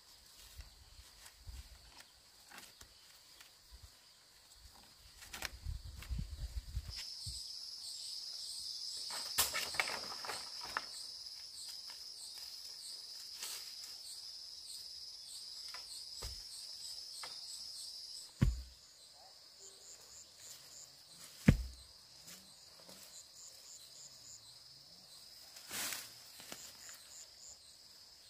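Insects trilling steadily and high-pitched outdoors, loudest through the middle and fainter after. Two sharp thumps about two-thirds of the way through are the loudest sounds, with scattered clicks and a low rumble about six seconds in.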